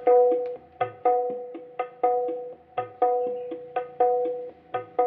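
Percussive music test track played loud through a PA speaker on the mid-high channel of an RDW NR 8004 MK3 four-channel power amplifier, crossed over to roughly 300–3000 Hz. It is a regular repeating pattern of sharp drum-like strikes, each ringing on a steady tone.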